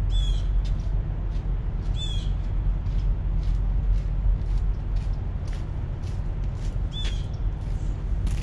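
Low steady engine rumble of idling trucks, with a bird chirping three times, a short falling call each time. Quiet footsteps on gravelly pavement come closer as a person walks up.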